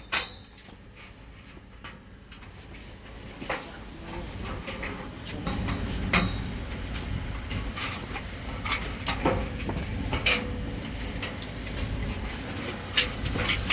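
Scattered light clicks and knocks over a low steady hum that builds about five seconds in.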